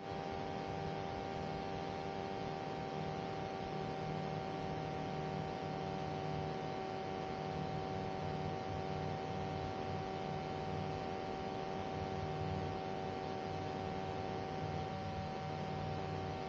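Steady electrical hum and hiss with two unchanging tones on the aircraft's intercom audio feed, the line idle with no one transmitting.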